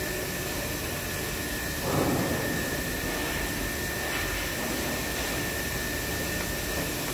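Moriseiki MS-850 three-phase lathe running, its headstock gearing driving the spinning four-jaw chuck with a steady mechanical running noise. There is a brief louder swell about two seconds in.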